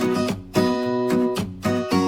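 Background music: strummed acoustic guitar playing chords in a steady rhythm.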